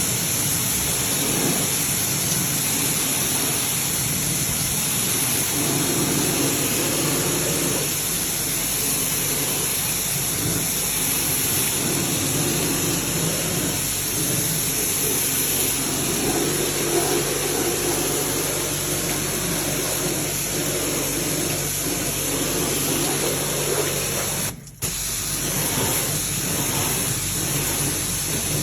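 Steady rushing spray of water with a machine hum underneath, typical of spray-cleaning refrigeration equipment; it cuts out briefly near the end.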